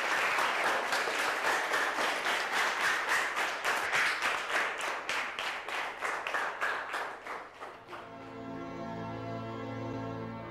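A classroom of children clapping together in a steady rhythm, about four claps a second, dying away about eight seconds in. Slow instrumental music with long held notes then begins.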